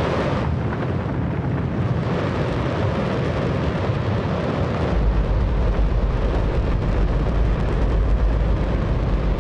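Space Shuttle main engine, a liquid hydrogen and oxygen rocket engine, test-firing with a loud, steady roar. About five seconds in, a deep rumble becomes much stronger.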